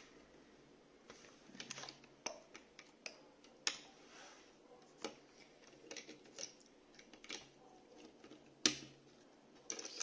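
Small plastic parts of a Beyblade launcher being handled and fitted together: scattered light clicks and taps, the loudest near the end.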